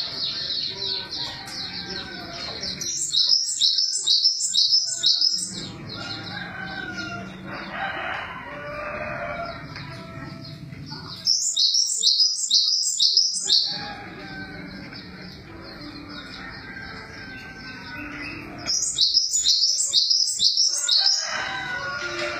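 Glatik songbird singing three bursts of rapid, evenly repeated high notes, each lasting about two seconds, with softer, lower bird calls in the gaps between.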